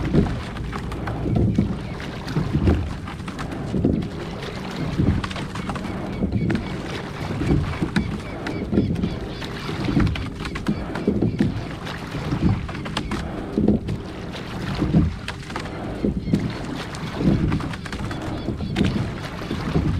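Rowing boat under way: a steady rhythm of oar strokes, one pulse about every second and a quarter, with the splash and knock of each stroke.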